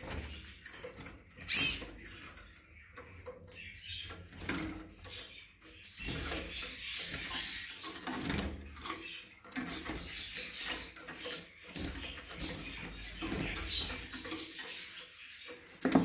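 Small cage birds, canaries and goldfinches, chirping, with scratchy rustling and light taps. One loud, sharp chirp comes about a second and a half in.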